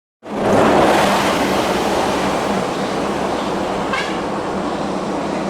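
Benelli Imperiale 400's single-cylinder engine running steadily on the move, heard under a dense steady rush of wind and road noise; it cuts in suddenly after a moment of silence.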